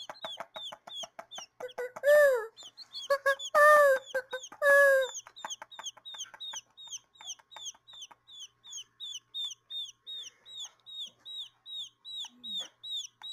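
Baby quail chicks peeping: a steady run of short, high, falling peeps at about three a second, with three louder, lower, drawn-out cries in the first five seconds.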